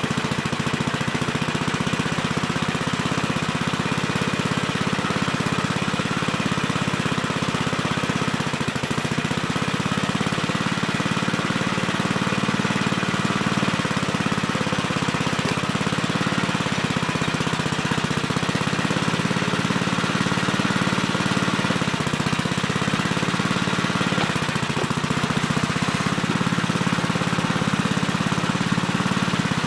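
Gravely Terramite compact backhoe's engine running steadily, with two brief dips about nine seconds in and near the end.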